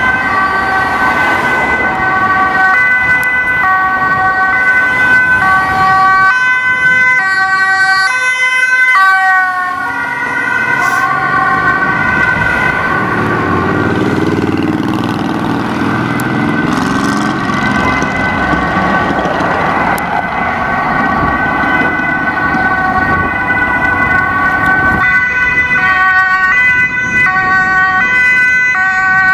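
Dutch ambulance two-tone siren, alternating steadily between a high and a low pitch. About nine seconds in, the pitch slides down as an ambulance passes. Midway, road traffic and engine noise rise and the siren grows fainter, then it comes back clearly near the end.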